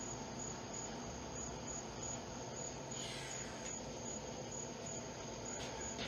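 Steady background chirping of crickets.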